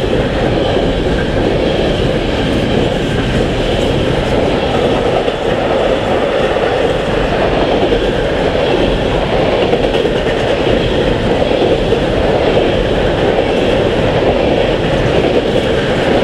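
Container freight train's loaded flat wagons rolling past close by: a steady, loud rumble of steel wheels on rail that holds even throughout.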